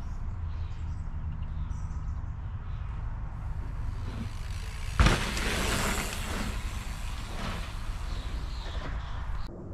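Low wind rumble on the microphone; about five seconds in, a mountain bike lands hard off a wooden drop with a loud thud, then its tyres hiss over the dirt for a second or so.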